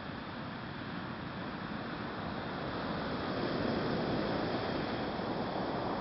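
Ocean waves washing on the shore, a steady rush that swells to a peak about halfway through and then eases slightly.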